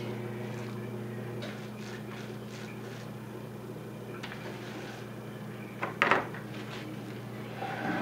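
Wooden beehive box being handled and turned over: a few faint scrapes, then a sharp double knock of wood on wood about six seconds in. A steady low hum runs underneath.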